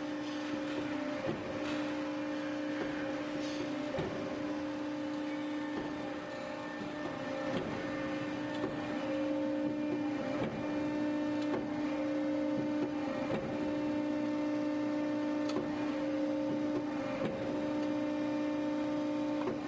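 Accurpress CNC hydraulic press brake's hydraulic pump running: a steady motor hum with a clear whine, broken by short dips every few seconds, with light clicks throughout.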